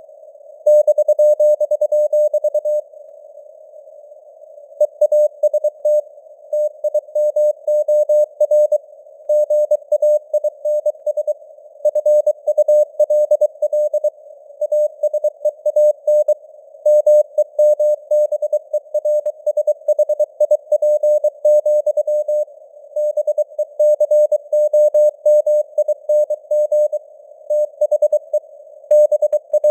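Morse code at 23 words per minute: a single tone of about 600 Hz keyed on and off in dots and dashes, over a narrow band of simulated radio hiss. The keying pauses briefly a few seconds in, then runs on.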